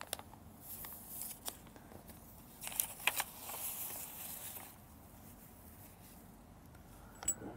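A plastic zip bag of small injector parts rustling and crinkling as it is handled, with a few faint clicks.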